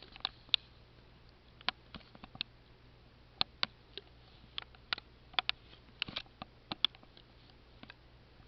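Ceiling fan running on low speed with a faint steady hum, over which come sharp clicks at irregular intervals, about two or three a second.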